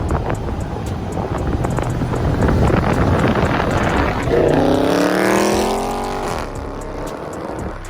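Dodge Charger Scat Pack's 6.4-litre HEMI V8 running hard. About four seconds in, a rev comes through clearly, and its pitch falls away over about two seconds before the engine settles to a quieter hum.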